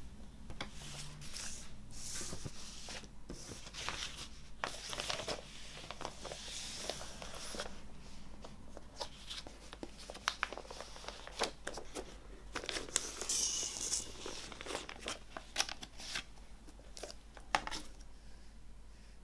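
A clear plastic record sleeve crinkles and rustles as a vinyl picture disc is handled and slid into it, with a few sharp clicks and taps among the rustling.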